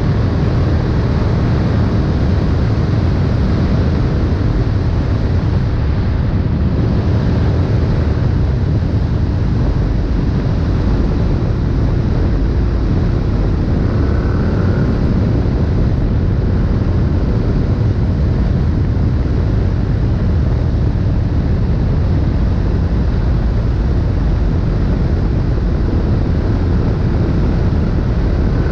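KTM 1290 Super Duke R's V-twin engine through an Austin Racing aftermarket exhaust, running loud and fairly steady while riding, with wind rushing over the microphone.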